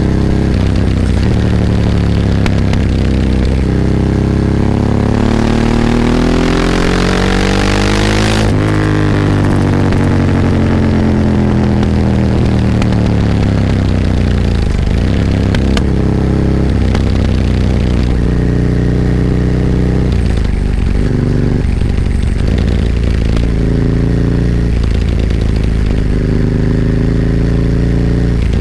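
Ducati 998's L-twin engine heard onboard, revving hard with its pitch climbing for several seconds. About eight seconds in the revs drop off sharply and fall away. After that the engine runs on with shorter rises and falls in revs.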